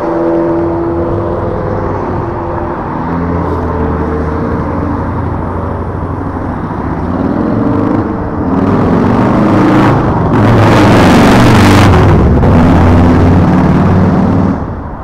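Hiboy S2 Pro electric kick scooter being ridden: its hub motor whines and shifts in pitch as the speed changes, over tyre and wind rush. The rush grows louder from about nine seconds in, then drops near the end.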